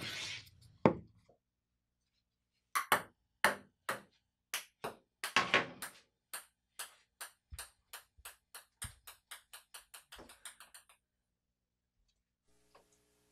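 A ping-pong ball bouncing on a table tennis table, each bounce a sharp click, coming quicker and fainter until it stops. A short scrape and a single knock come in the first second.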